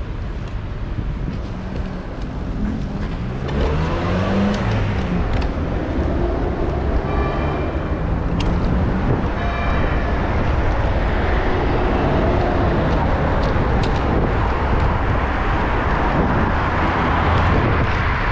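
Street traffic heard from a moving bicycle: motor vehicles running and passing, their engine notes rising and falling over a steady low rumble. Two short high-pitched tones sound partway through.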